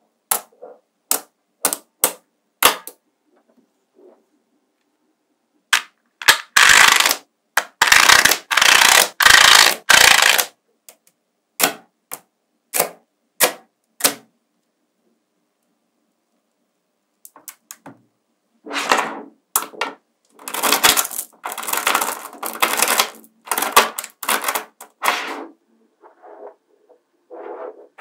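Small magnetic balls clicking and clacking as they snap onto one another. It starts as sharp single clicks, then comes in dense rattling runs, with a few seconds of silence between them.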